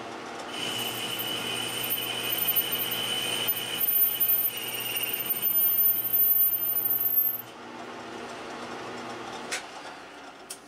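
Atlas metal lathe running with a steady high-pitched squeal from the cutting work. The squeal starts about half a second in and stops suddenly about three-quarters of the way through, leaving a lower hum and a couple of sharp clicks near the end.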